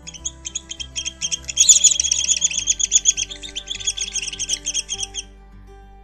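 Downy woodpecker calling: a rapid series of sharp, high notes that quickens into a dense whinny-like run about a second and a half in, then stops a little after five seconds. Quiet background music plays under it.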